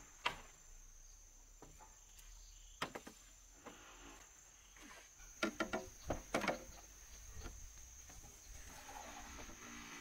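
Hollow green bamboo poles knocking against each other and the bamboo frame as they are handled and laid onto a trellis: a few single knocks, then a quick run of knocks about five and a half to six and a half seconds in. A steady, high-pitched insect buzz runs underneath.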